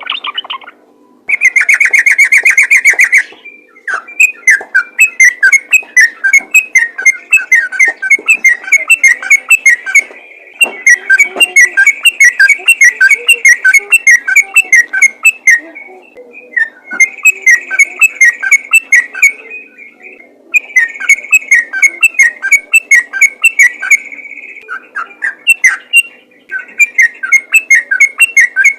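Sooty-headed bulbul singing in long, rapid, continuous runs of loud whistled notes, broken by short pauses: the fast 'ngeropel' song used to provoke other bulbuls into answering. A faint steady hum lies underneath.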